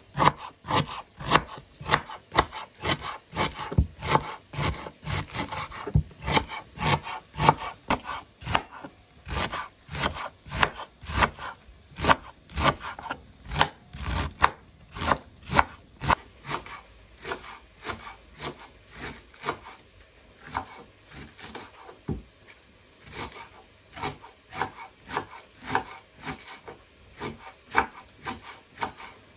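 Kitchen knife shredding a head of white cabbage on a wooden cutting board. It makes a steady run of crisp strokes, about two to three a second, each cutting through the leaves and knocking the board.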